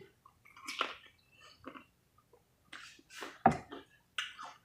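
People eating fried chicken: irregular chewing and mouth smacks, a few short sounds a second, the loudest about three and a half seconds in.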